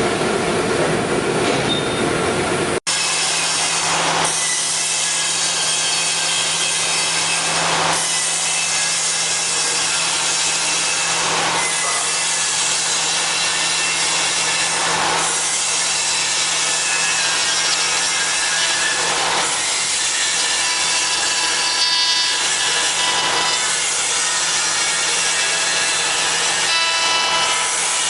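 CNC router spindle cutting wood: a steady machining noise with a held low hum. The cutting swells roughly every three and a half to four seconds. The sound breaks off abruptly about three seconds in and resumes at once.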